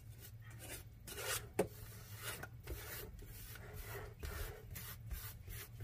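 Back of a metal spoon pressing and smoothing buttered Lotus biscuit crumbs into a metal cheesecake pan, a series of soft, gritty scraping strokes packing the base down. A light knock about one and a half seconds in.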